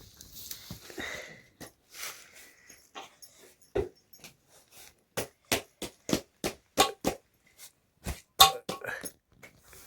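A dog barking: a series of short, sharp barks that come faster and louder from about five seconds in.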